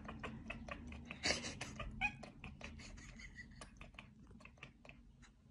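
A domestic cat chattering at something it sees through a window: a rapid run of jaw clicks with a few short chirps, the excited chatter cats make at prey they can't reach. It thins out near the end.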